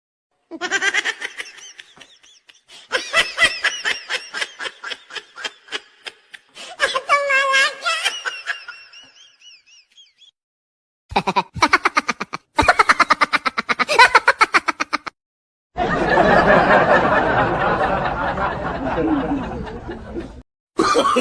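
Laughter, in several separate bursts cut together with short silent gaps: rapid pulsing 'ha-ha' laughs, then a longer, denser stretch of laughing near the end.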